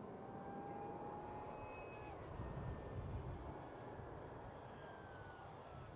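Distant jet noise from a Boeing 787-8 on approach with its Rolls-Royce Trent 1000 engines: a low rumble that swells about two and a half seconds in, with thin high engine whine tones above it, one dropping in pitch about two seconds in.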